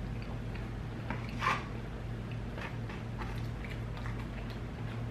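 A man chewing a mouthful of sauced chicken burrito close to the microphone, with soft mouth clicks and one louder wet smack about a second and a half in. A steady low hum runs underneath.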